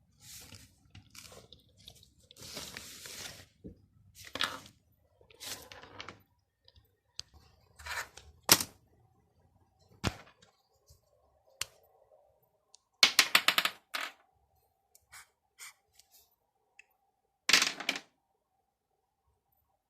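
A silicone pop-it fidget toy and a metal scouring sponge being handled: scattered scrapes, rustles and sharp clicks, with a quick run of clicks about thirteen seconds in and another short cluster near eighteen seconds.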